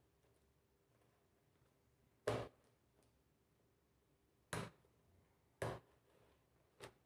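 Four separate sharp knocks and clicks, spaced unevenly, from hands handling the laptop, its parts and tools on a hard surface; the second-to-last is the loudest.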